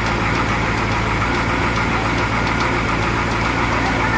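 A 1998 Wellcraft Eclipse's carbureted inboard marine engine idling steadily, heard close up with the engine hatch open, with a light ticking over the even running.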